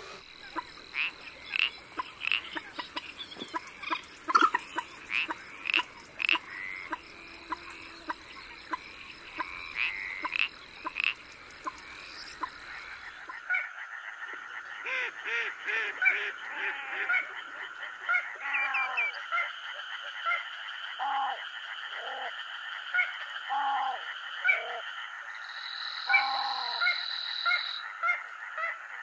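Wetland ambience in two parts: first a high steady buzz with many short sharp calls; then, from about halfway, a night chorus of frogs croaking over a steady trilling drone, with a second high steady tone near the end.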